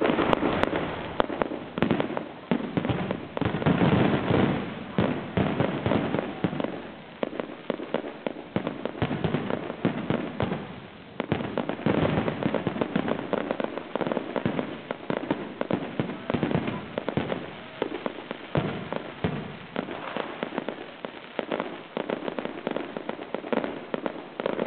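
Fireworks display: a continuous barrage of rapid bangs and crackling, swelling louder and easing off in waves.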